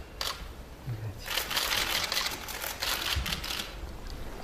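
Shutters of many press SLR cameras firing together in rapid overlapping clicks: a few single clicks near the start, then a dense clatter from about a second and a half in until nearly the end.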